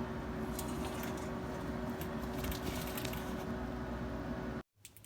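A steady machine hum with a held tone, with light metallic clinks and ticks over it in the first few seconds. The hum cuts off suddenly near the end, leaving quiet room tone.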